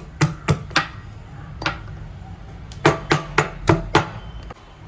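Peeled shallots being pounded with a pestle to crush them for their juice: sharp knocks, three quick ones near the start and one more, then a run of five about a third of a second apart.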